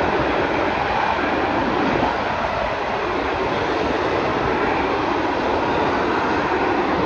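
Jet engines of a line of Snowbirds CT-114 Tutor jets running on the ground, a steady rushing noise with no change in pitch.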